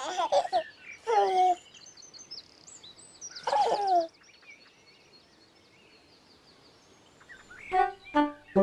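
A baby giggling and cooing in three short bursts, with faint birdsong chirping between them. Near the end come three short pitched sounds.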